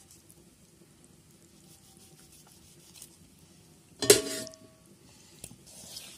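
Soft handling noises of masala-coated raw fish being moved by hand, broken about four seconds in by a single sharp metallic clank with a short ring, like a knife knocking against a metal dish.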